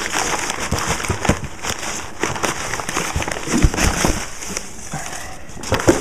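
Newspaper and plastic wrapping crinkling and rustling as a hand rummages through it in a foam shipping box, a dense run of small crackles throughout.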